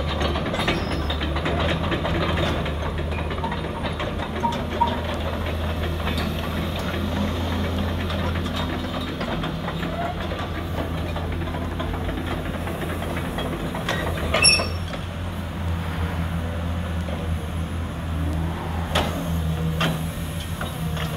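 Caterpillar 321D tracked excavator's C6.4 diesel engine running steadily as the machine travels on its steel tracks and swings, with a few sharp clanks, the loudest about fourteen seconds in.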